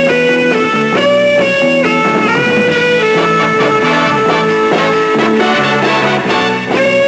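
Instrumental music: a melody of held notes, changing every half second or so, over a steady chord backing, with no singing.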